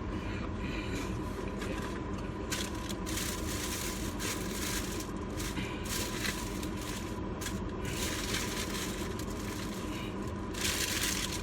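Several bursts of rustling and crinkling handling noise over a steady low rumble and a faint steady tone.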